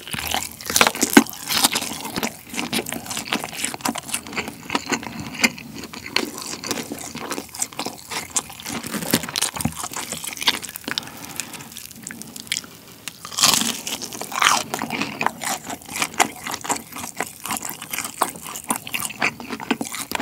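Close-up crunching and chewing of crispy BBQ Golden Olive fried chicken breast: the fried batter crackles with each bite and chew, with louder bursts of crunching about a second in and again about two-thirds of the way through as new bites are taken.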